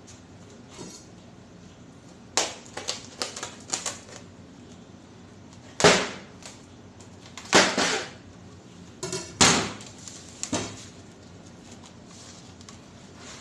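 Plastic cling wrap crackling and snapping as it is stretched and pressed against the rim of a stainless steel bowl, in irregular clusters of sharp bursts. The loudest come about six and eight seconds in.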